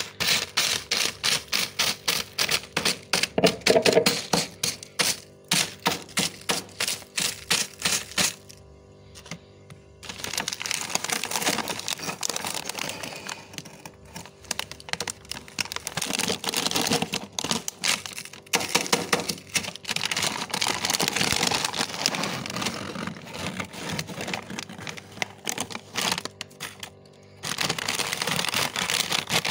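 A metal curry spoon scraping and crunching through thick freezer frost. First comes a quick run of sharp, crunchy strokes, about three a second. From about ten seconds in, these give way to longer grinding scrapes with short pauses.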